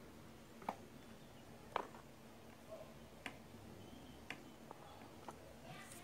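About half a dozen faint, sharp clicks at irregular intervals, the two loudest in the first two seconds, as a thin wire is scraped and pressed against the traces of a washing machine control circuit board.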